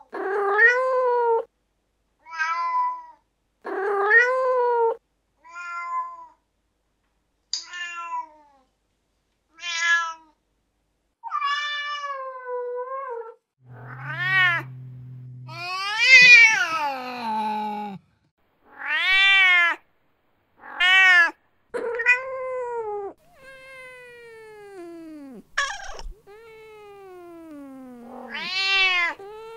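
Domestic cat meows, about fifteen calls one after another with short gaps between them. Each call rises and then falls in pitch. Some are short mews and a few are long, drawn-out wails.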